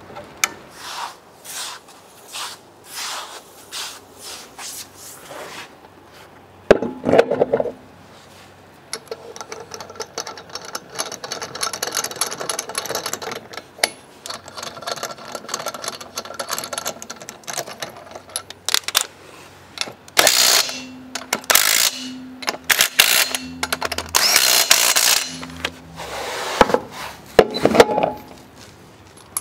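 Tools at work on car parts: a run of short scraping strokes and knocks, then several loud bursts from a power tool near the end.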